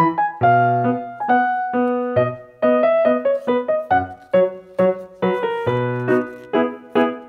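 Background music: a keyboard playing a light melody of short struck notes, a few a second, each fading quickly.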